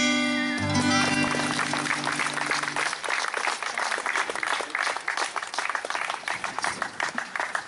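The final chord of a ballad on acoustic guitar and a second instrument rings out for the first three seconds, while a small crowd starts clapping about a second in. The applause carries on alone and thins out near the end.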